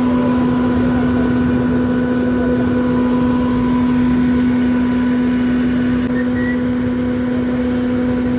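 A machine running steadily, with a constant droning hum over a rough rumble.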